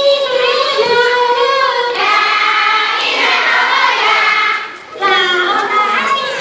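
A group of children singing together in held, sliding notes, with a short break between phrases a little before the end.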